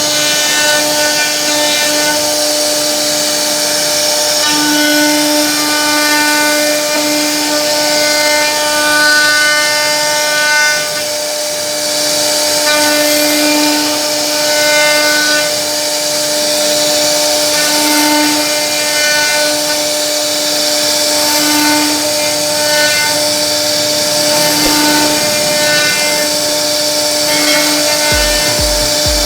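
CNC router spindle running steadily with a constant high whine while its bit cuts into a wooden board, the cutting noise swelling and easing every second or two as the bit works through the wood.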